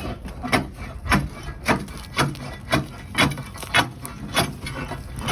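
Hand saw cutting through a tree root, rasping strokes at about two a second.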